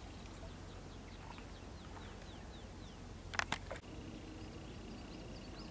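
Quiet waterside ambience with a distant small bird singing a run of short falling whistles for about two seconds, then a few sharp clicks about three and a half seconds in.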